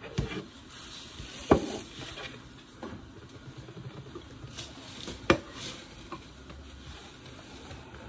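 Kitchen utensils and dishes handled: a spoon stirring and a few sharp knocks against bowls, the loudest about a second and a half in and about five seconds in.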